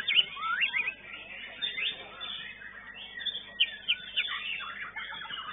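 Songbirds singing in a song contest: a quick run of whistled notes, rising sweeps and chirps from several birds, growing busier near the end.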